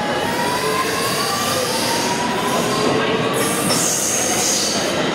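R211 subway train pulling out of the station: the traction motors' whine climbs in pitch as it speeds up over steady rail noise. A high wheel squeal comes in about three seconds in and fades again near the end.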